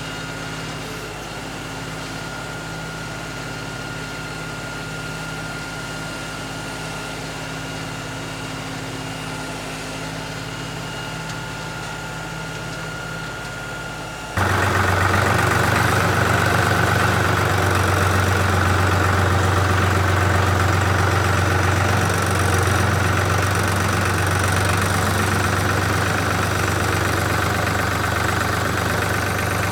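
Engine idling steadily. About halfway through it abruptly becomes much louder, with a stronger deep hum.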